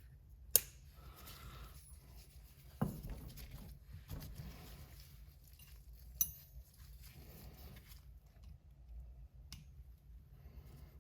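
Small metal tool clicking and scraping on a turbocharger part while working the split, piston-ring-like seal ring off it: a few sharp clicks, the loudest about half a second in, others near three, six and nine seconds, over faint handling noise.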